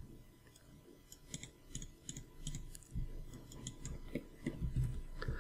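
Faint, irregular clicking of a computer mouse and keyboard, a few clicks a second with gaps between them.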